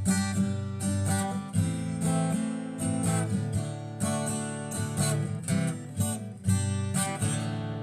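Intro music: strummed acoustic guitar, ending abruptly.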